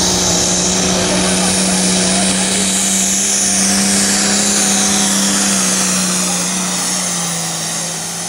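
Light pro stock pulling tractor's diesel engine running flat out under load as it drags the weight sled: a steady, loud drone with a high turbo whistle above it. Near the end the pitch drops slightly and the sound fades.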